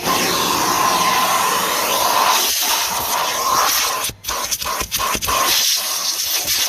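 Kerstar KV25-2 twin-motor commercial vacuum cleaner running, drawing air through its hose and nozzle with a loud, steady rushing hiss and a whine. The sound drops out for a moment about four seconds in, then turns uneven.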